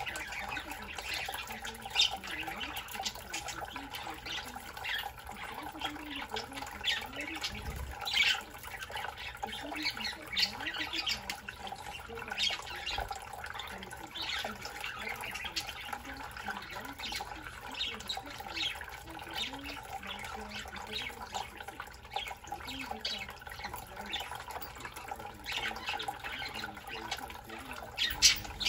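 A flock of budgerigars chattering, with many short, irregular chirps and clicks overlapping all the way through.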